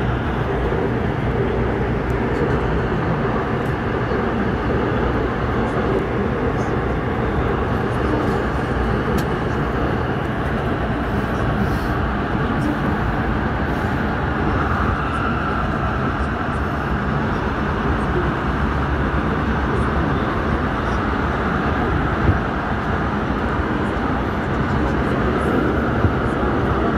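Airport Railroad (AREX) all-stop commuter train running at speed through a tunnel: a steady, loud rumble of wheels on rails, with a few sharp clicks near the end.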